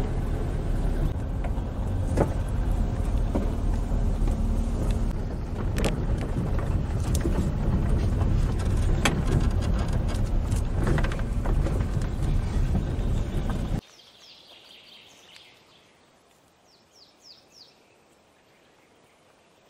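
Car driving over a bumpy dirt track, heard from inside the cabin: a steady low rumble with occasional knocks and rattles. About fourteen seconds in it cuts off suddenly to quiet forest with a few short bird chirps.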